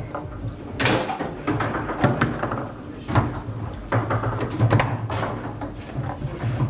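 Table football (foosball) in play: irregular sharp knocks and clacks as the ball is struck by the players on the rods and hits the table, over a steady low hum.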